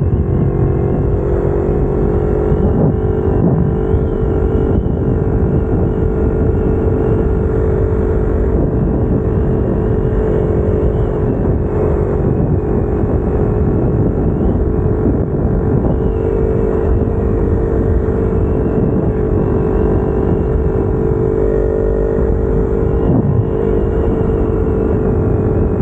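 Kawasaki Ninja 250R's parallel-twin engine, fitted with new headers and exhaust, running at a high, nearly steady pitch while riding, over a dense low rumbling noise.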